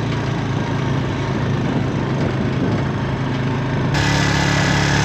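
Four-wheeler (ATV) engine running steadily. About four seconds in, the engine note changes and gets slightly louder.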